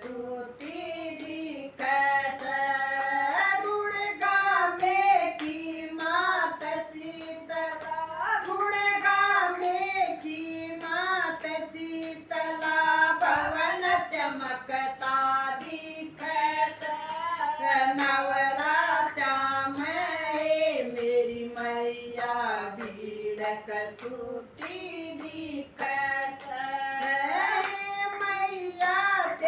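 Women's and a girl's voices singing a Hindi devotional bhajan to the mother goddess together, with hand claps keeping the beat.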